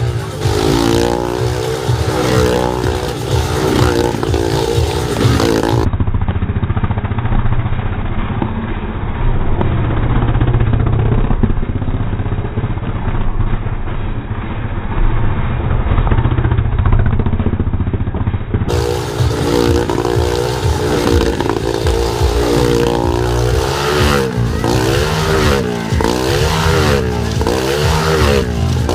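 Motorcycle engine running laps inside a steel-mesh Globe of Death, its pitch rising and falling with each circuit, about once a second near the end.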